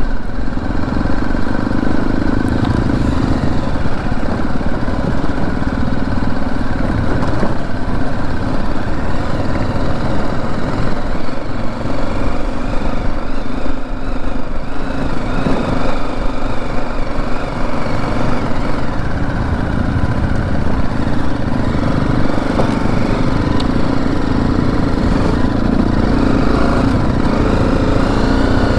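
BMW G 310 GS's single-cylinder engine running steadily as the motorcycle rides over a rough dirt trail, heard from on the bike with a continuous low rumble.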